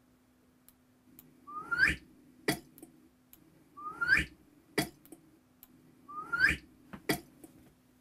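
A short sound effect played back three times, about two seconds apart. Each time it is a rising, whistle-like swoop followed by a sharp click.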